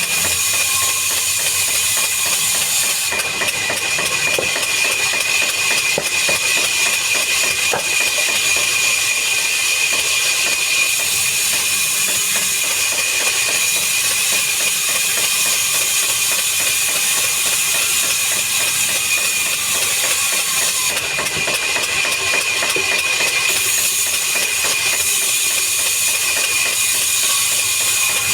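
Woodworking machinery running steadily: a constant high whine over an even hiss.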